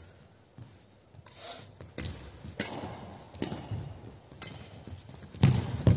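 Badminton rackets striking a shuttlecock during a doubles rally: a string of sharp hits roughly a second apart, the loudest near the end.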